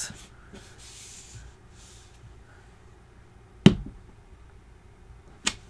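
A quiet tabletop with a faint brushing sound, then one sharp click about two-thirds of the way in as a clear acrylic stamp block with a rubber stamp is pressed onto cardstock. A second, lighter click comes near the end.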